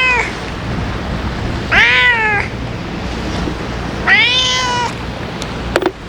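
Cat meowing: two drawn-out meows about two seconds apart, each rising then falling in pitch, after the tail of a third at the start. A steady low rumble runs underneath, and there is a brief click near the end.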